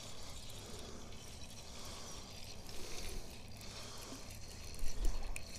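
Spinning reel being cranked to bring in a small hooked fish, a steady soft mechanical whirr, with a few low thumps near the end.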